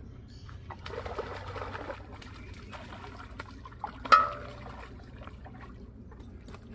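Water splashing as a hooked fish thrashes at the surface and is hauled out on a fishing line, with one sudden loud splash about four seconds in.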